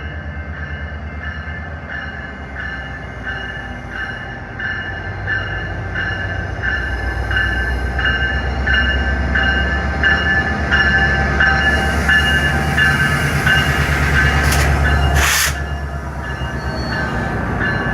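Metrolink MP36PH-3C diesel locomotive, with its 16-cylinder EMD prime mover, growing louder as it works, while its bell rings steadily about twice a second. Near the end come two short hisses, and the engine sound drops away sharply.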